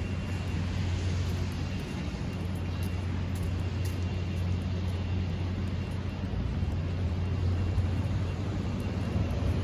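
Steady city street traffic noise with a constant low hum underneath and no distinct events.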